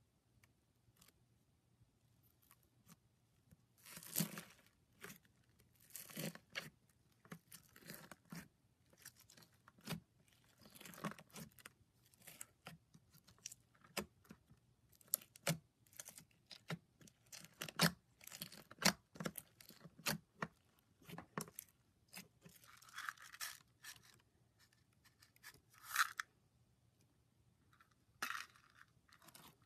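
Slime being played with: irregular sticky pops, clicks and short crackling bursts.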